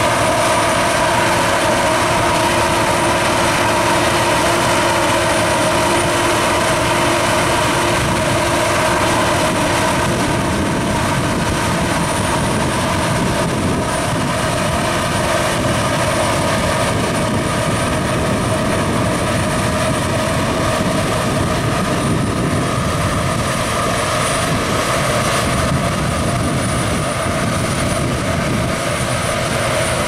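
Claas Lexion 650 combine harvester working under load, picking up and threshing a ryegrass windrow: a steady, even drone of the engine and threshing gear. Whining tones in the mix fade after about ten seconds.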